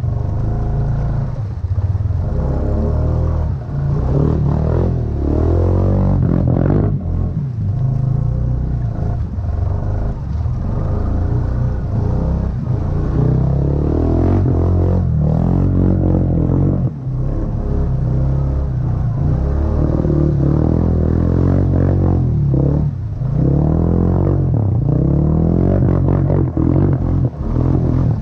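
Honda ATV engine running under load, its revs rising and falling again and again as the throttle is worked, with a low rumble underneath.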